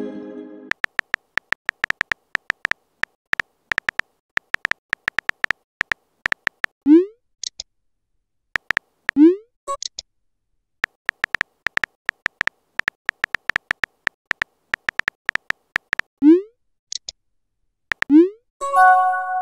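Phone keyboard typing clicks in quick runs, broken by short rising 'bloop' message sounds four times as texts are sent and received. A brief synth chime sounds near the end.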